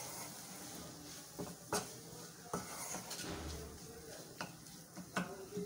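Spatula stirring a shredded chicken filling in a nonstick kadhai: a low scraping with a few irregular knocks of the spatula against the pan.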